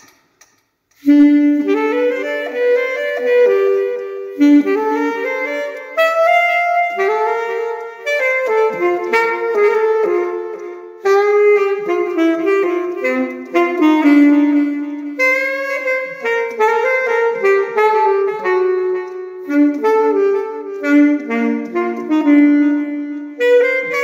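Bebop melody on a saxophone, a fast run of quick notes in a single line, beginning about a second in after a brief silence.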